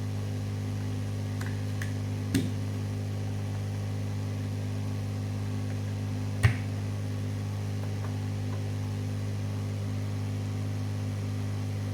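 Steady low electrical hum, with a few light clicks and one sharper click about six and a half seconds in.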